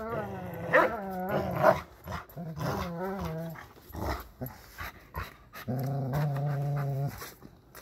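Giant schnauzers growling in play while tugging at a ring toy: a run of wavering growls, then one steady low growl held for over a second near the end.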